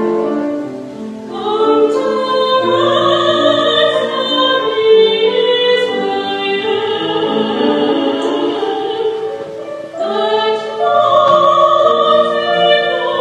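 Music with voices singing long held notes, several pitches at once. It dips briefly about ten seconds in and then picks up again.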